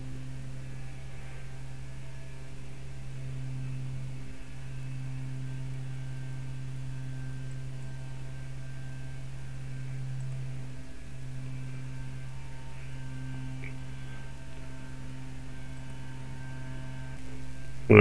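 Steady low electrical hum with a few faint overtones, typical of mains hum in the recording, dipping briefly twice.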